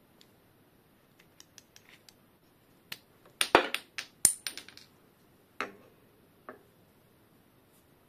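Small clicks and clacks of disc brake pads and a Shimano BR-MT200 hydraulic caliper being handled. Light ticks at first, a cluster of sharper, louder clacks and rattles in the middle, then two single clicks.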